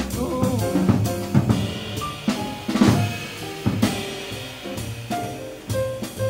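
Live jazz from piano, upright double bass and drum kit, with the drums busy on snare, bass drum and cymbals over the piano and bass. A loud drum hit with a cymbal lands about three seconds in.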